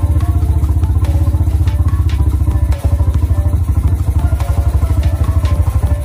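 Yamaha Scorpio 225's single-cylinder four-stroke engine idling with an even, rapid pulsing beat while its carburettor is being adjusted; the beat dips briefly about three seconds in.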